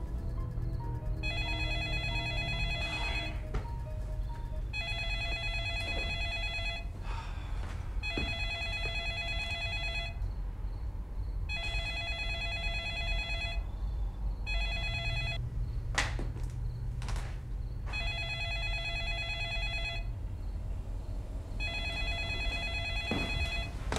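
Smartphone ringing with an electronic ringtone: about seven rings, each about two seconds long with a short gap between them, over a low background music drone. Two sharp knocks come about two-thirds of the way through.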